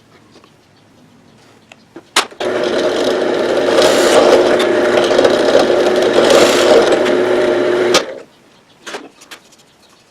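Electric drill with a 5/16 inch bit boring a hole in wood. The motor starts with a click about two seconds in, runs steadily for about five and a half seconds with a hiss of the bit cutting that swells twice, then stops abruptly, followed by a few light knocks.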